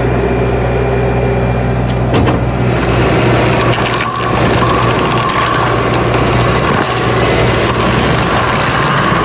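Diesel engine of a Bobcat compact track loader running steadily, with a few sharp clicks about two seconds in. From about three seconds in, a dense grinding noise joins with a steady high hum as its forestry mulcher head chews through brush and saplings.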